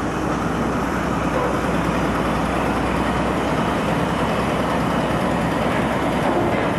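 Steady running of heavy construction machinery engines: an even, low engine hum under a constant noisy wash, with no breaks.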